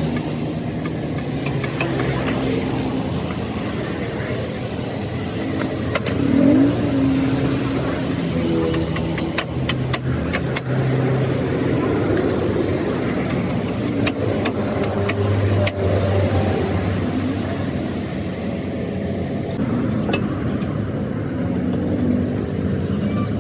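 Motor vehicle engines running nearby, with scattered sharp metallic clicks and taps.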